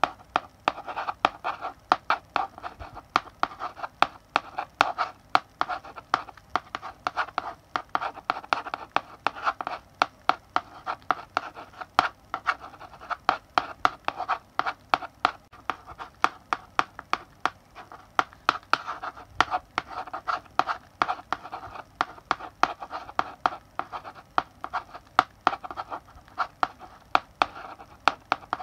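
Chalk writing on a blackboard: rapid sharp taps as the chalk strikes the board, with short scratchy strokes between them, going on without a break.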